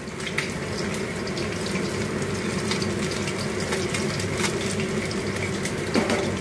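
Masala-coated fish pieces shallow-frying in hot oil in a kadai: a steady sizzle with scattered crackles.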